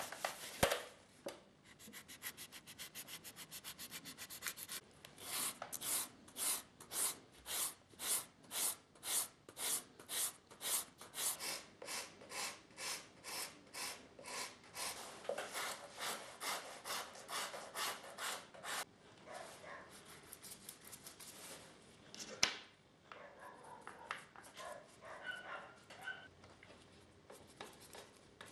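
Hand blade scraping across the leather bottom of a lasted shoe in quick, regular strokes, about two a second, which stop about two-thirds of the way in. Fainter, irregular handling and rubbing sounds follow, with one sharp click.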